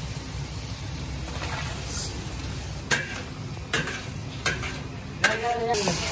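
Chicken frying and sizzling in its masala in a large steel biryani pot while a long-handled steel ladle stirs it. In the second half the ladle clanks sharply against the pot's side four times, with a short metallic ring after the last clank.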